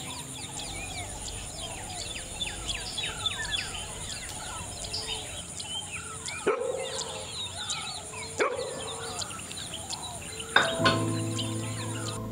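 Many small birds chirping and twittering in a dense chorus of quick high calls, over a steady high-pitched whine. Two sharp, louder sounds come about two seconds apart in the middle. Background music comes back with a loud note near the end.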